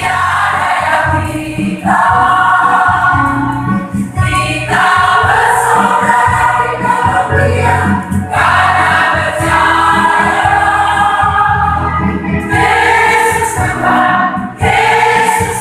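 A mixed church choir singing a Christmas song in phrases of a few seconds each, with instrumental accompaniment underneath.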